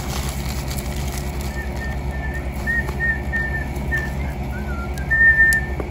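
A string of short high whistled notes, one dipping lower about four and a half seconds in, over a steady low hum.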